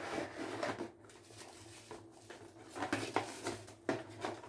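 Cardboard box and packaging being handled as a hair straightener is slid out of it: scattered rustles, scrapes and light knocks, a few louder near the start and again around three seconds in.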